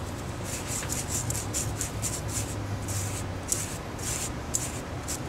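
Damp black powder being rubbed by hand through a wire-mesh kitchen strainer onto a metal tray, granulating it: quick, repeated short scratching strokes, about three a second, starting about half a second in.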